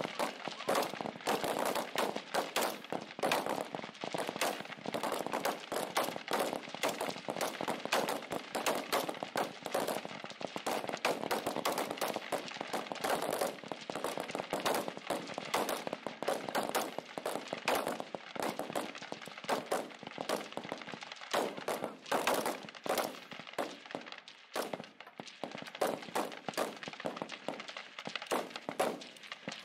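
Many rifles firing along a rifle-range firing line during a rapid-fire string: overlapping shots in a dense, irregular stream, with no pause.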